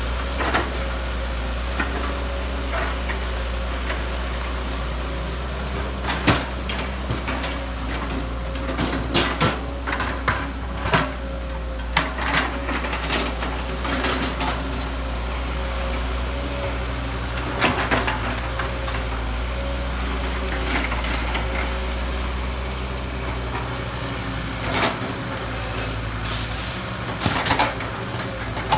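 Kobelco excavator's diesel engine running steadily, with several clusters of sharp knocks and clicks.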